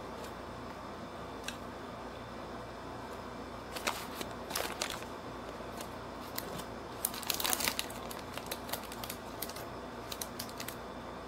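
Close-up chewing of a burger and fries, heard as three bouts of crisp crackling clicks, the middle one loudest, over a steady low hum.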